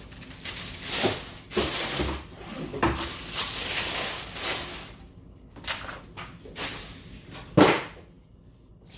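Rustling and handling of a pair of sneakers and their packaging, with scattered clicks and knocks. The rustling is dense for the first half, then thins to a few separate knocks, the loudest a thump about three-quarters of the way through.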